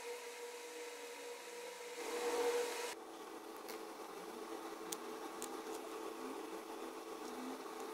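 Small metal lathe running: a steady motor hum under the hiss of a cut for about the first three seconds, then the hum alone with a few light clicks.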